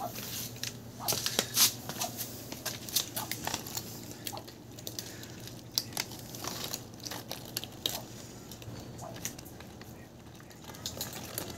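Several cats crunching dry kibble: a dense run of small, crisp cracks and clicks that thins out toward the end.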